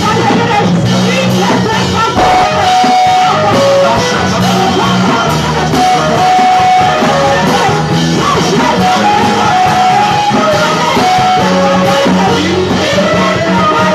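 Loud music: a song with singing over guitar and a steady bass line.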